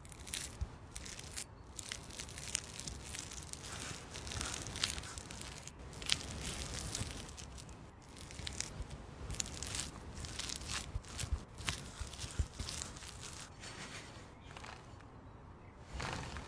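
Kitchen handling noises: irregular rustling and crinkling, broken by scattered sharp clicks and taps.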